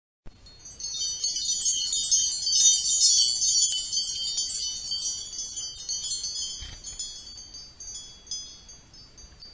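Chimes tinkling: a dense shower of many high ringing notes that starts about a second in and slowly dies away.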